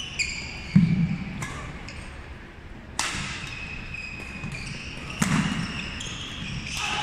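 Badminton rally: racket strikes on the shuttlecock, the sharpest about three seconds in, with players' shoes squeaking and thudding on the wooden court.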